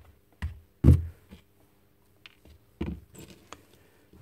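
Metal saw parts and tools being handled and set down on a concrete floor: a few separate knocks and clicks, the loudest a heavy clunk about a second in and another near the end.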